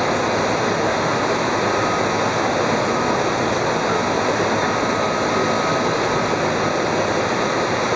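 Radio-controlled scale model helicopter hovering at close range: a steady whooshing rotor noise with a faint whine.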